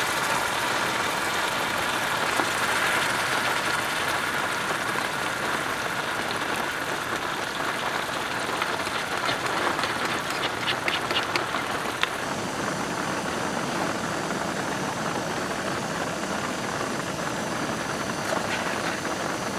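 Heavy rain falling steadily, a continuous even hiss, with a few light clicks about ten seconds in.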